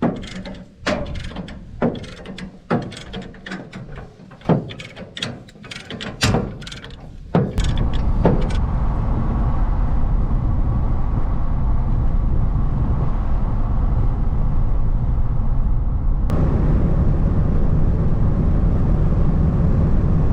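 A string of sharp clicks and clanks, irregularly spaced, for the first seven seconds or so; then a vehicle running steadily with low road noise, with a single sharp click a few seconds before the end.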